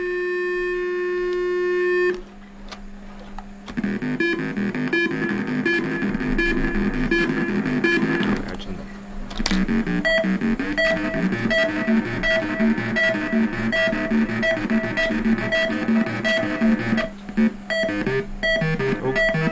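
littleBits Synth Kit oscillator playing through its small speaker module: a steady held tone that cuts off about two seconds in, then a repeating pattern of short stepped notes that breaks off briefly midway and changes near the end.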